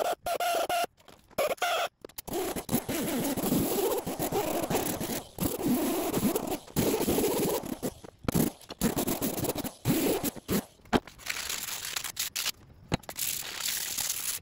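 Sped-up, chopped-together sounds of air tools grinding and sanding a steel anvil. A steady high whine from the pneumatic grinder fills the first couple of seconds, then scraping, grinding noise follows, cut off abruptly many times.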